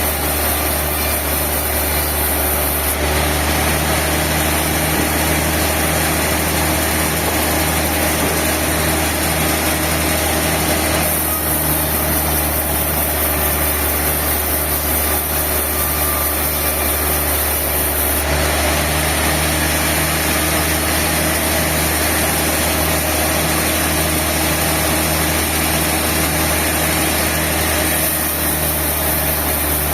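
Sawmill machinery running with a steady, loud mechanical drone and a low hum. The higher hiss shifts a few times.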